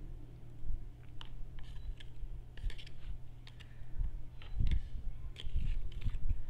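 Plastic chopsticks stirring and picking through a pile of instant noodles on a clear plate, a scatter of light, sharp clicks as the sticks tap the plate. Dull low thumps join in the second half.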